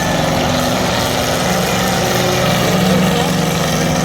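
Demolition derby truck engines running together in a loud, steady drone that swells slightly near the end.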